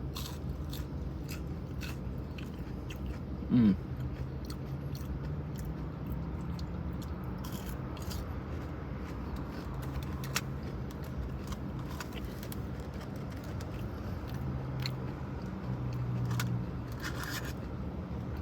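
Someone biting into and chewing breaded mozzarella fries, with soft crunches and mouth clicks scattered throughout over a steady low hum. A brief louder sound comes about three and a half seconds in.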